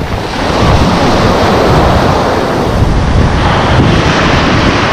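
Strong wind buffeting the microphone over waves surging on the shore: a loud, steady rush of noise with low rumbling gusts.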